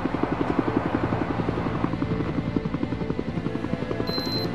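Helicopter rotor beating rapidly and evenly. Steady tones enter about halfway, and a short high beep sounds near the end.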